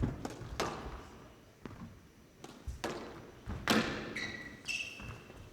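Squash rally: the ball struck by rackets and hitting the walls, sharp echoing impacts about every half second to a second, with a brief squeak of court shoes on the floor near the end.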